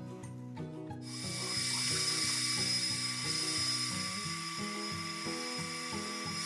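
Background music with a steady melody, joined about a second in by a power tool that starts and runs steadily with a high whine over a hiss of noise.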